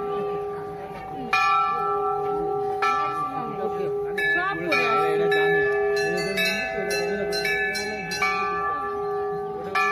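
Hanging brass temple bells rung again and again, a new strike roughly every second, their ringing tones overlapping and sustaining.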